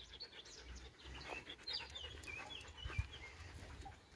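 A dog panting hard, tired and hot after a long walk.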